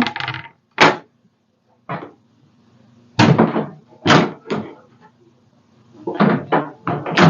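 Knocks and thuds of a wooden tray being handled and set down on a tabletop: several separate bumps with short pauses between, more of them near the end.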